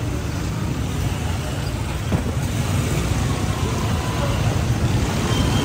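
Steady street traffic noise, a continuous low rumble of passing vehicles with no single event standing out.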